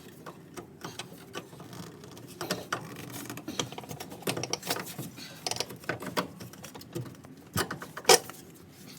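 Irregular metallic clicks and knocks from handling a new rear shock absorber and its mounting hardware while it is worked up into its mount, with one sharper knock about eight seconds in.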